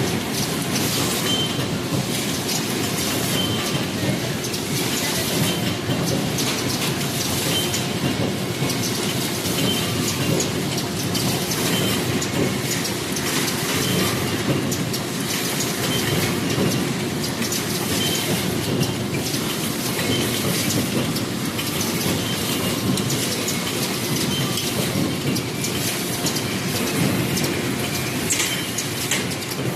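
Many paper plate forming machines running together, their presses cycling in a dense, steady mechanical clatter of overlapping clicks.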